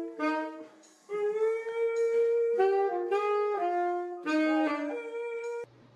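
Solo instrumental melody of held and short notes on a single pitched instrument, breaking off briefly about a second in and cutting off suddenly near the end.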